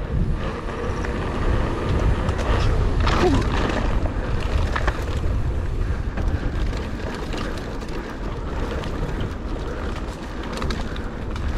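Steady wind noise buffeting an action camera's microphone, a low rumble, while riding a mountain bike.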